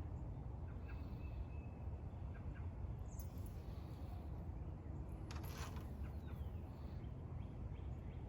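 Steady low outdoor rumble with a few faint, short bird chirps, and a brief scrape about five seconds in.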